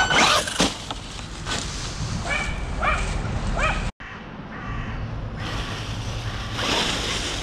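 Several short, harsh crow caws over handling knocks, then a brief dropout to silence. After it comes a steady rushing noise that grows louder partway through.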